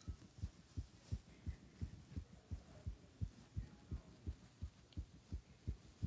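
A person's heartbeat: quick, regular low thumps, about three a second, the pulse raised after jumping.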